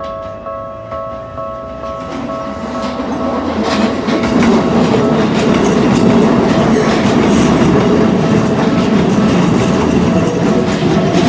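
Japanese level-crossing warning bell ringing in even dings, about two a second. From about two seconds in, a Keikyu Line train passes close by, its wheels clattering over the rail joints and mostly drowning out the bell.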